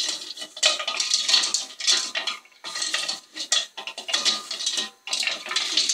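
Stones being stirred around in a steel saucepan of liquid, scraping and clattering against the pan in an irregular run of grinding rattles, with brief pauses between strokes.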